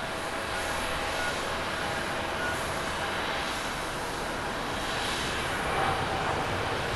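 Boeing 787 airliner's jet engines running as it rolls along the runway: a steady rush with a faint whine, swelling slightly near the end.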